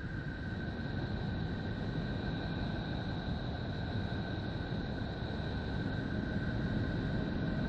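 Sonified Voyager 2 space data presented as the sound of Neptune: a steady rumbling drone under a hiss, with two steady high tones on top, slowly growing louder.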